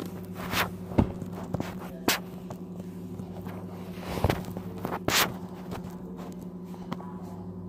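Handling noise of a phone held close: a few scattered knocks and rubs of fingers on the device, over a steady low hum.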